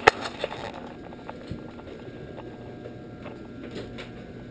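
A sharp click, a door latch as the door is opened, then a steady faint hiss with a few light ticks.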